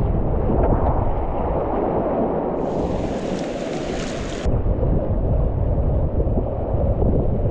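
Whitewater rapids rushing around a kayak, with heavy wind rumble on the microphone. For about two seconds near the middle, a brighter hiss of splashing water comes in.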